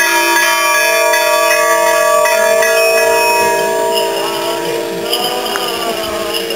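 Church bells ringing in rapid, overlapping strikes for the Orthodox Easter Resurrection. About four seconds in the strikes stop and the ringing dies away.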